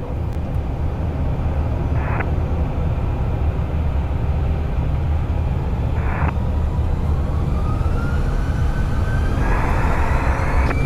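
Airbus A320 taking off, heard from the cockpit: a deep steady rumble that grows louder, with the engines' whine rising in pitch over the last few seconds. Two short clicks, about two and six seconds in.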